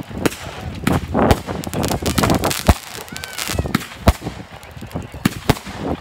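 Aerial firework shells bursting with sharp bangs, a thick run of them one after another about a second or two in, then single reports spaced through the rest.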